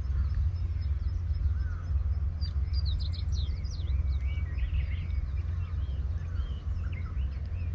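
Small wild birds chirping and calling, most busily a few seconds in, over a steady low rumble.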